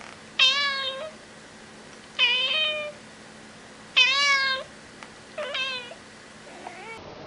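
A cat meowing four times, each meow about half a second long and spaced roughly a second and a half apart; the last is quieter.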